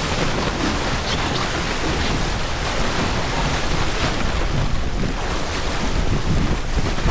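Wind buffeting the microphone over water rushing along the hull of a sailboat under way.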